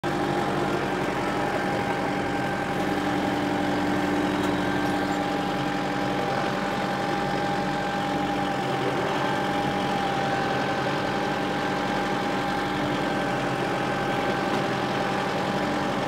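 Kubota M6060 tractor's four-cylinder diesel engine running steadily as the tractor drives past.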